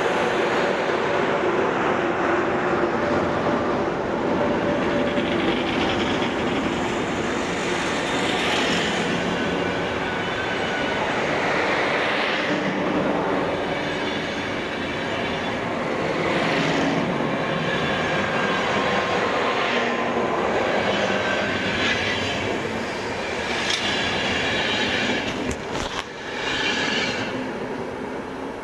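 Passenger coaches rolling past close by, wheels clattering on the rails with a swell of clatter every three to four seconds and a faint thin wheel squeal. The noise drops away near the end as the last coaches pass.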